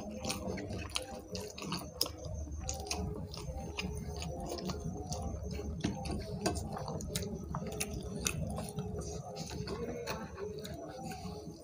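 Two people eating rice and curry with their hands: chewing, with frequent small clicks as fingers mix and scoop rice on the plates, over a steady low hum.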